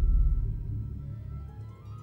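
Film score music: a deep, heavy low note that comes in loud and slowly fades, with a line of rising notes near the end.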